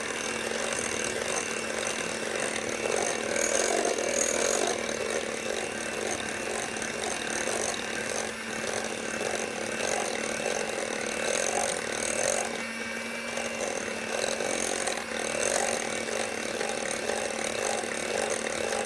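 Handheld electric mixer running steadily with a constant motor hum, its beaters whisking butter, sugar and egg in a glass bowl as they are creamed into a smooth batter.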